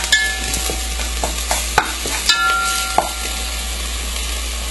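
Chopped onion and garlic sizzling in hot oil in a nonstick pot, stirred with a spatula that scrapes and taps the pan bottom several times in the first three seconds; after that a steady sizzle.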